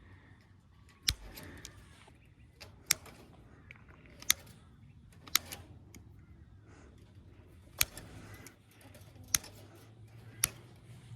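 Chicken wire being cut with a hand cutting tool: about seven sharp metallic snips at irregular intervals, a second or two apart.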